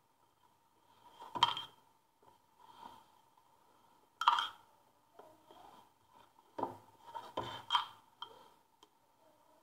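Metal spoon spreading tomato sauce over pizza dough in a round metal baking tray, scraping softly with a few sharp clinks against the tray rim.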